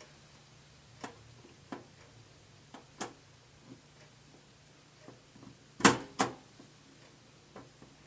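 Scattered sharp metallic clicks and ticks as a screwdriver turns a screw into the sound card's bracket at the expansion slots of a desktop PC case. The clicks are irregular, about nine in all, with the loudest pair about six seconds in.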